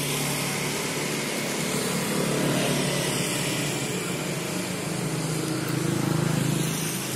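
Steady road traffic with engines humming. The sound swells twice, about two and a half and six seconds in, as vehicles pass.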